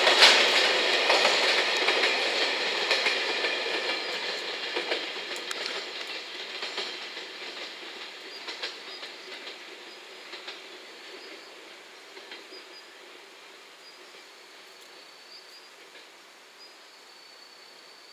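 Container wagons of a freight train clattering over the rail joints as the end of the train passes, then the wheel-on-rail noise fading steadily as the train draws away.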